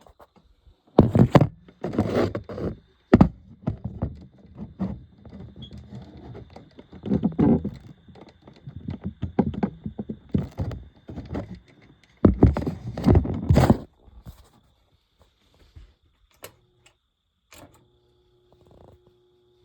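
Handling noise from working on a hard-wired smoke alarm and its wiring: irregular clunks, knocks and rattles, with the loudest thunks about a second in and again about twelve seconds in. A faint steady hum comes in near the end.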